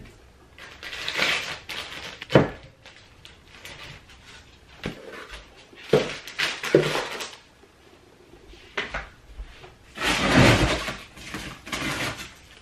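Hands packing an order on a tabletop: several sharp knocks and clinks of small product bottles and jars being set down, and stretches of rustling and scraping as a cardboard shipping box is handled, the loudest rustle about ten seconds in.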